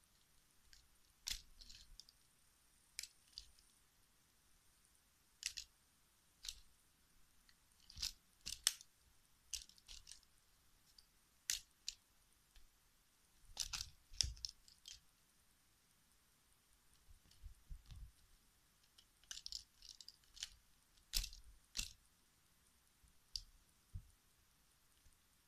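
A cat clawing and biting at a plastic phone clamp on a selfie stick: irregular, scattered clicks and scratches, with occasional soft knocks.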